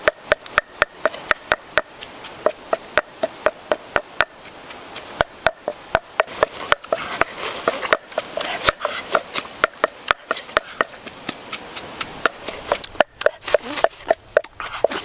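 Knife chopping on a wooden block, sharp strikes repeated about three times a second.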